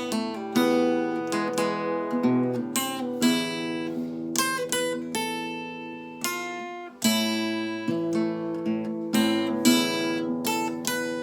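Solo guitar playing an enka melody: single plucked notes over chords, each ringing and fading, with a brief lull about seven seconds in before a strong new note.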